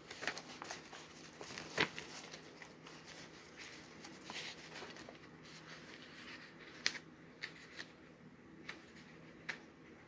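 Sheets of paper rustling faintly as they are leafed through, with a few sharper paper flicks, the loudest about two seconds in and again near seven seconds.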